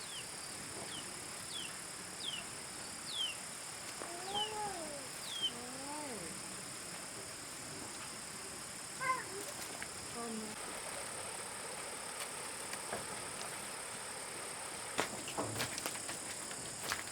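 Two drawn-out rising-and-falling calls from a small animal, amid a run of short, high, falling chirps about every half second to second from a bird. A steady high insect drone runs underneath, with a few clicks near the end.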